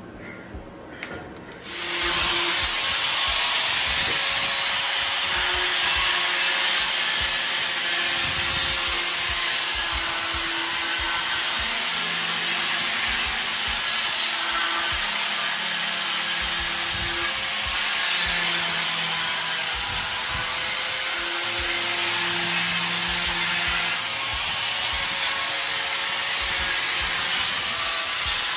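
Corded electric drill running as it bores into a steel frame. It starts about two seconds in and runs steadily, with its motor note coming and going as it is run and eased off.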